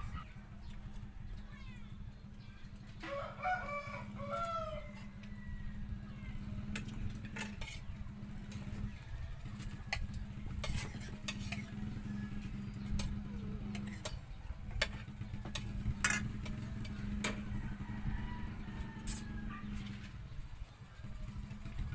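A rooster crows once, a pitched call of about a second and a half starting about three seconds in. Spoons and forks clink and scrape against plates and bowls during the meal, over a steady low hum.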